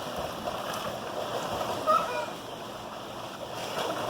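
Pool water splashing and sloshing as children swim and play in it, loudest about two seconds in.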